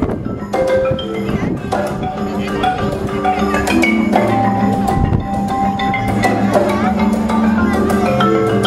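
A live percussion ensemble playing marimbas and other mallet percussion, with many quick struck notes and one note held for about two seconds midway.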